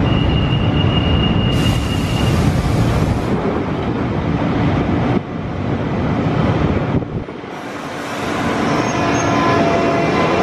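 London Underground Central Line 1992 Stock train at the platform: a steady high warning tone sounds for about two seconds as the doors are about to close, over a constant rumbling hum. Near the end the train's motors begin a rising whine as it starts to pull away.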